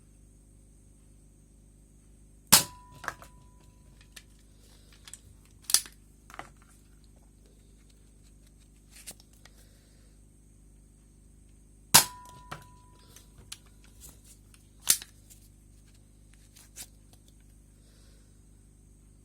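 Emco Hot Shots toy blaster firing twice, about nine seconds apart. Each shot is a loud sharp snap with a brief ringing tone after it. Lighter clicks and knocks come between and after the shots.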